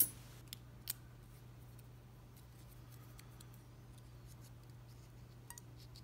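A few faint, sharp metallic clicks and taps from handling a dimple lock cylinder and small steel tools, one right at the start, two within the first second and a couple more later, over a steady low hum.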